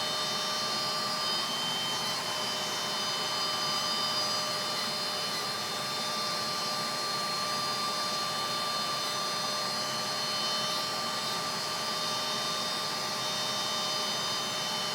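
WeCreat Vision 40W diode laser cutter running a cut through walnut board, its fans and smoke/fume extractor blowing steadily. The sound is a constant airy whir with several steady whining tones.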